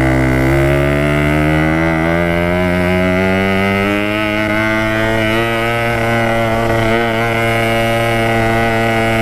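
Yamaha RX-King's 135cc two-stroke single-cylinder engine pulling hard under load up a steep hill, its revs rising over the first three seconds and then holding steady.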